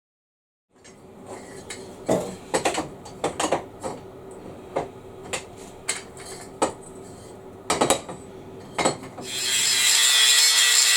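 Metal workshop sounds: a run of irregular knocks and clinks from working parts of a homemade pipe clamp, over a faint steady hum. About nine seconds in, a power tool starts up with a loud, steady hiss.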